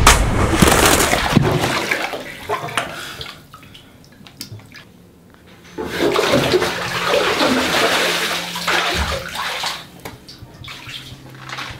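Water splashing: a big splash at the start that dies away over about three seconds, then, after a quieter gap, a few seconds of water sloshing in a bathtub as a person stands up in it.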